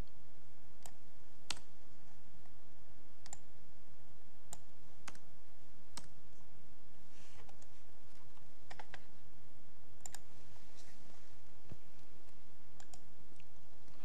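Single sharp clicks at irregular intervals, about one a second with a few close pairs, like buttons being pressed on desk equipment. A faint soft rustle comes twice in the middle.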